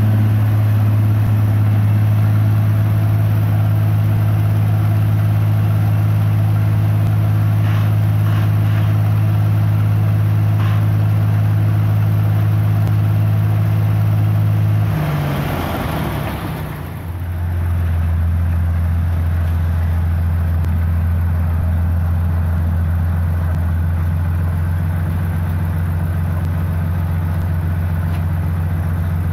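Clayson 1545 combine harvester's engine running steadily. About halfway through the sound shifts, with a brief dip in level, and the engine then runs on steadily at a slightly lower pitch.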